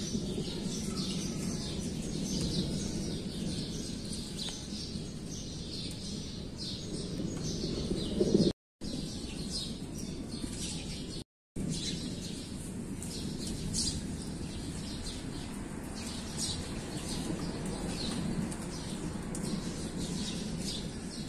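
Small birds chirping continuously in short, quick, high notes over a steady low rumble; the sound cuts out completely twice for a moment in the middle.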